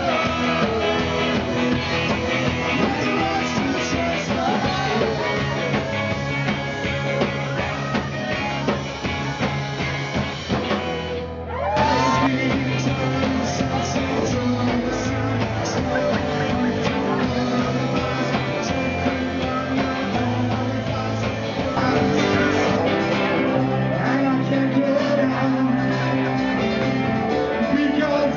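Rock and roll band playing, with a singer and electric guitar; the music dips briefly about eleven seconds in and then carries on.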